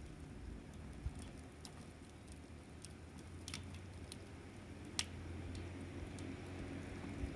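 Wood fire crackling: irregular small pops and snaps over a low rumble, with one sharper pop about five seconds in.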